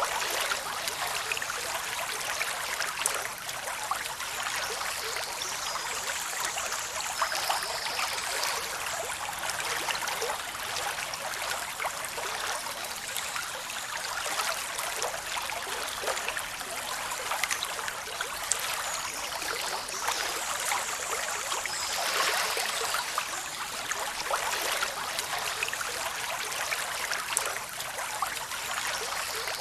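Waterfall rushing down over rocks: a steady, even rush of water with fine splashing. Its sound sits mostly in the upper range, with little deep rumble.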